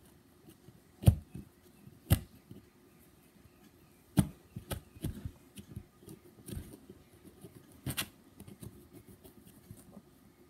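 Fingers and fingernails picking and scraping at a packed-sand toy dig block, with gritty crumbling and irregular sharp clicks and taps, the loudest about a second in.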